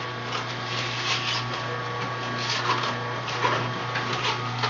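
Electric juicer motor running with a steady hum while kale leaves are pushed into its chute, with several short irregular bursts of crunching and grinding as the greens are fed through.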